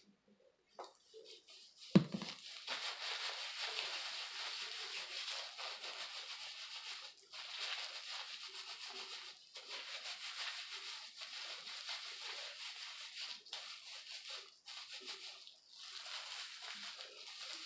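Gloved hands rubbing and scrunching bleach through wet hair, a steady rustling hiss broken by brief pauses. A single sharp thump about two seconds in.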